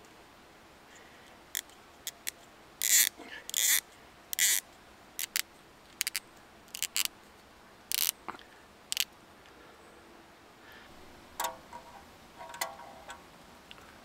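Pocket knife shaving a wooden branch: about fifteen short, sharp scraping cuts. Near the end, two light metallic clinks from a mess tin's wire handle.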